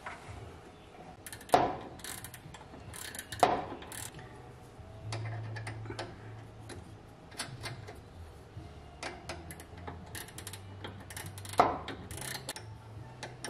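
Steel open-end wrenches clinking and ticking against the nuts on a car's parking brake cable adjuster rod as the nuts are tightened against each other (double-nutted). There are many small ticks and three louder clinks spread through.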